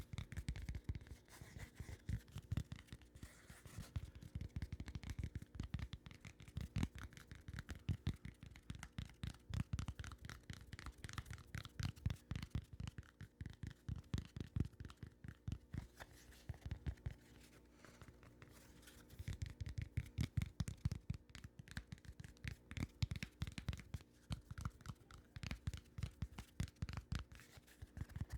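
Rapid, close-miked scratching and tapping on an object at the microphone, many small strokes a second, easing off for a few seconds past the middle before picking up again.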